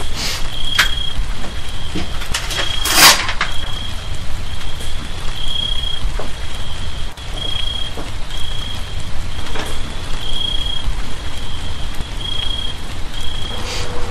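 Steady low rumble and hiss of background noise, with a faint high chirp repeating about once a second. A short, loud scraping noise comes about three seconds in, and a few lighter clicks come near the start and later on.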